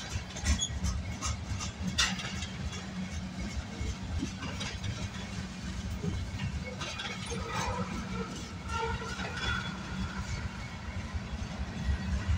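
CSX freight train of tank cars rolling past a grade crossing: a steady low rumble of steel wheels on rail with scattered clicks and clanks. It grows louder near the end as a diesel locomotive comes by.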